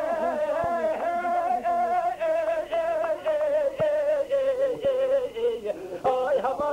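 A Kurdish dengbêj singer's unaccompanied male voice holding one long, wavering, ornamented line that slowly falls in pitch.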